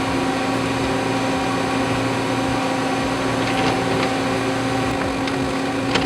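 CNC machine running the first machining operation on a vacuum pump mandrel, a steady mechanical hum with a few faint ticks.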